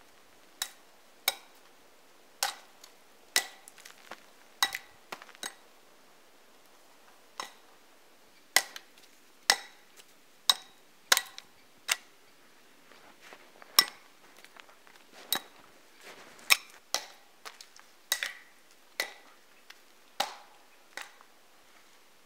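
A hatchet striking a tree trunk over and over: sharp wooden knocks, irregular, about one a second, each with a short ring.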